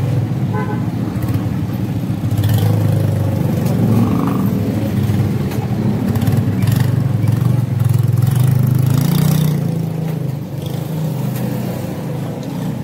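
A motor vehicle's engine running close by in the street, a low rumble that grows louder a few seconds in and eases off near the end.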